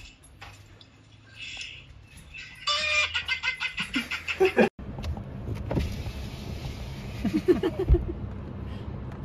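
About two seconds of rapid, cackling laughter. It stops at a sudden cut, and a steady low vehicle rumble follows, heard from inside a car.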